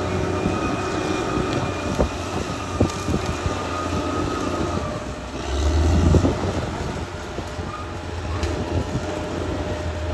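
Caterpillar D6R XL bulldozer working: its diesel engine runs steadily under load while the steel tracks clank and squeal. The engine swells louder about halfway through.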